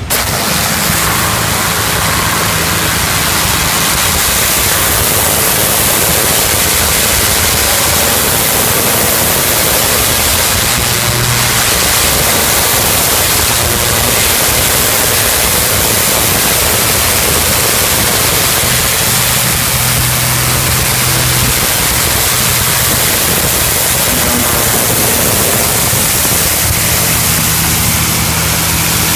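Hot-water pressure washer blasting through a turbo lance (rotating nozzle) onto a greasy baler: a loud, steady rushing hiss of the water jet, with the washer's engine humming underneath.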